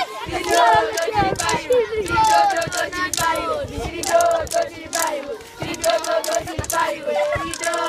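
A group of children chanting and singing together in overlapping high voices, with shouts, as a game song. Short sharp taps sound throughout.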